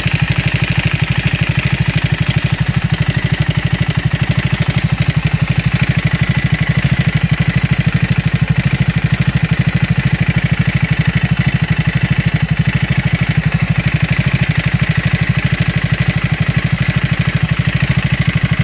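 Triumph 400-series single-cylinder motorcycle engine idling steadily, a rapid, even train of exhaust pulses with a thin high whine above it. The owner posts this as an abnormal engine noise.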